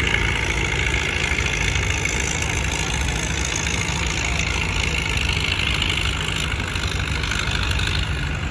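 A modern John Deere tractor's diesel engine running steadily as it drives down a dirt pulling track, a continuous low drone under a steady hiss.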